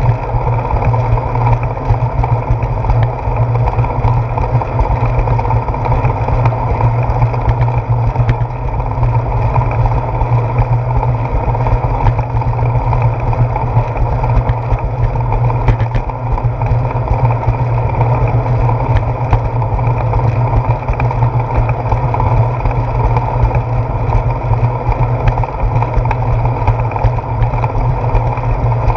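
Steady low rumble of wind and tyre noise on a handlebar-mounted GoPro Hero 4 while a bicycle rides along a concrete path, with no distinct events.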